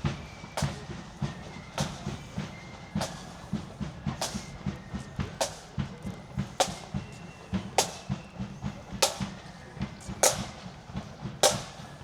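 Marching band drums beating a steady march: bass and side drums with a bright cymbal crash about every second and a quarter, and little or no melody over them.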